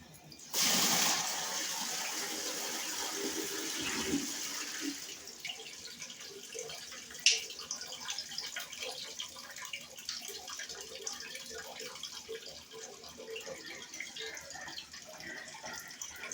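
Backed-up drain water gushing out all at once from the opened plug at the bottom of a drain line, starting suddenly about half a second in and easing after about five seconds into trickling and dripping, with a sharp click a few seconds later. The water comes out too fast because the top of the line acts as a breather.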